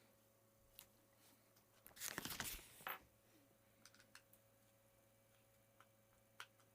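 Small hard parts being handled: a brief cluster of rattling, scraping clicks about two seconds in and a few faint single clicks, over near silence with a faint steady hum.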